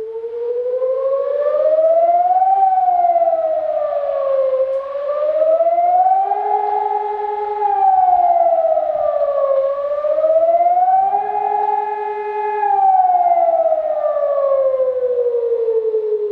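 Civil defence siren wailing loudly, its pitch slowly rising and falling about every five seconds and holding briefly at the top on the second and third rises, then falling away near the end. It is the alert sounded before an emergency broadcast message.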